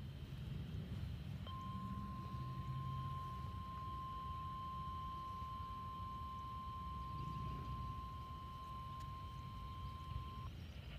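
A steady single alert tone of about 1 kHz from a radio receiver, starting about a second and a half in and cutting off about nine seconds later, over a low background rumble. It is the attention tone that heads a tornado warning test broadcast.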